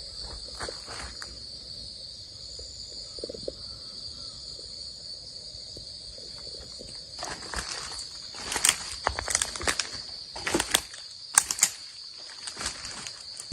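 Insects droning in one steady, high, unbroken note. In the second half, irregular sharp knocks and scrapes join in and are louder than the drone.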